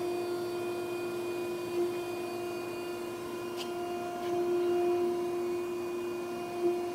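2014 Okamoto ACC-1224EXB surface grinder running under power, with its hydraulics on, grinding wheel spinning and table traversing: a steady hum that swells a little about four seconds in, with a few faint clicks.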